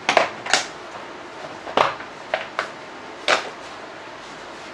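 Hard plastic parts of a Bosch pressure washer knocking and clacking as the motor and pump assembly is handled and fitted back into its casing: about six sharp knocks, two in the first half-second, then more around the second and third seconds.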